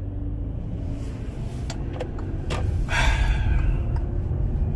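Car interior noise while driving: a steady low engine and road rumble, with a few light clicks and a brief louder rush about three seconds in.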